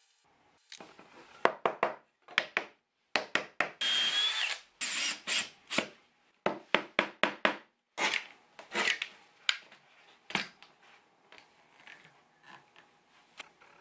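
A cordless drill runs with a high whine for about a second, boring into the wooden rails of a fishing rod holder. Around it come a run of sharp knocks and clatters of wood and tools being handled on the bench.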